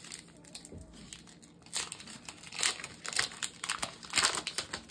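Pokémon TCG booster pack's foil wrapper crinkling and tearing open by hand, in several short irregular bursts with the loudest near the end.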